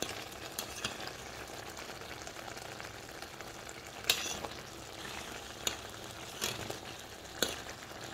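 Thick tomato sauce with beef kidneys bubbling and sizzling in a pot, the liquid mostly reduced and a spoonful of oil added, so it has begun to fry. A few sharp clicks stand out, the loudest about four seconds in.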